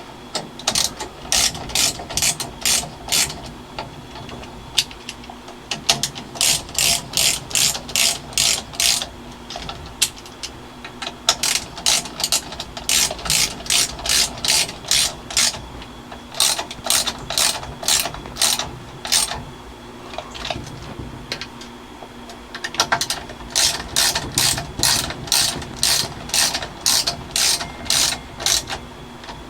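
Hand ratchet wrench clicking as it is worked back and forth, tightening bolts. There are five runs of quick, even clicks, about two or three a second, with short pauses between the runs.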